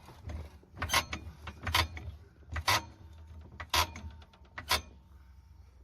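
Five sharp clicks, about one a second, with a quick run of fainter ticks between the last two.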